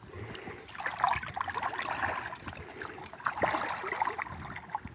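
Shallow pond water sloshing and splashing as a wading man gropes with his hands under submerged branches, in two busier spells.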